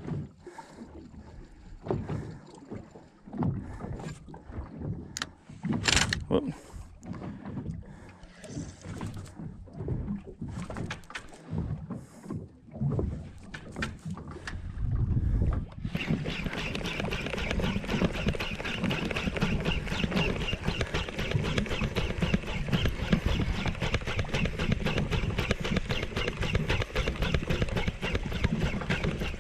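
Wind gusting on the microphone and scattered handling knocks. Then, from about halfway, the steady fast whirring tick of a Shimano Stella spinning reel being cranked hard, retrieving a metal jig up from the bottom.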